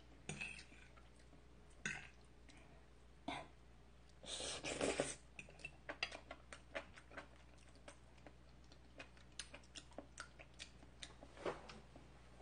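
Quiet eating sounds: chewing a mouthful of creamy pasta, with small clicks of a metal fork against a ceramic bowl. About four seconds in comes a louder noisy sound lasting about a second.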